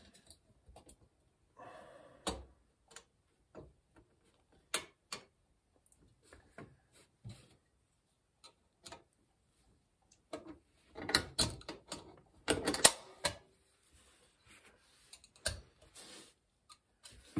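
Small metallic clicks and taps as a snap ring is worked into its groove in a Shimano FFS front freewheel chainring assembly. The clicks are scattered, with a busier run of them a little past the middle.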